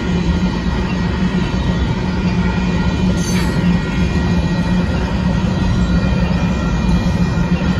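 Freight train's covered hopper cars rolling past at close range: a steady rumble of wheels on rail, with a brief high wheel squeal about three seconds in.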